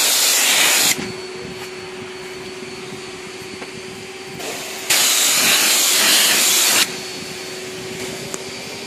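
High-pressure car-wash lance spraying water onto a car's glass, a loud even hiss in two bursts. The first burst stops about a second in, and the second runs for about two seconds just past the middle. Between the bursts a steady hum is left.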